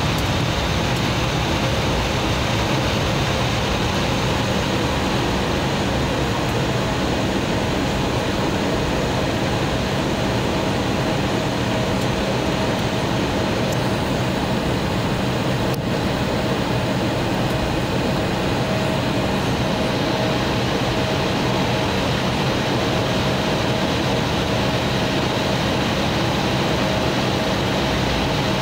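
Cabin noise inside an Embraer 175 jet taxiing: its GE CF34 turbofan engines at low taxi thrust give a steady hum and whine.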